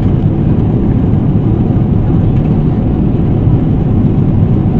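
Steady cabin noise of a Boeing 777-300ER in cruise: the even, low rush of airflow and engines heard inside the passenger cabin.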